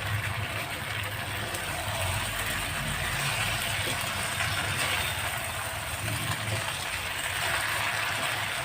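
Steady hiss of a pan simmering on the stove, over a low steady hum.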